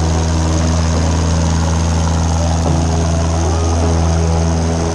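Single-engine propeller airplane's engine running loud and steady at full power during the takeoff roll, with the propeller's drone.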